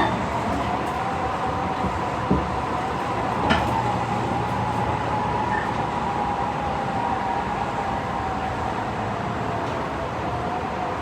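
Tobu 50070 series electric train running at speed, a steady rumble of wheels on rail with a single whine from the drive that drifts slowly lower. Two short knocks from the wheels a couple of seconds in.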